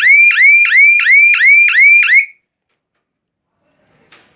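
Securico wireless intrusion alarm panel's siren sounding, set off by a triggered sensor. It is a loud electronic whoop that sweeps quickly up in pitch about three times a second, then cuts off abruptly about two seconds in.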